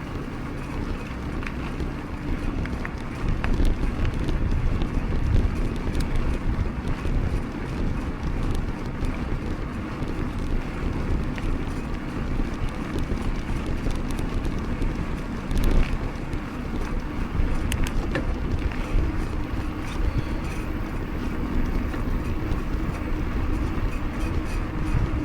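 Wind buffeting the microphone over the rolling tyre noise of a Specialized Stumpjumper 15 mountain bike ridden on pavement. Scattered small clicks and rattles run through it, with one louder knock about 16 seconds in.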